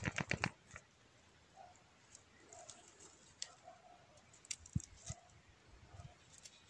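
A young rabbit shaking its head: a quick run of about six flapping rustles in the first half second. Then faint scattered clicks and rustles as it moves and nibbles among dry leaves, with a couple of soft thumps.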